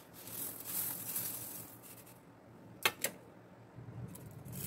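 Granulated sugar sliding off a steel plate into a pan of simmering kheer: a soft hissing rush for about two seconds, then two sharp clicks just under three seconds in.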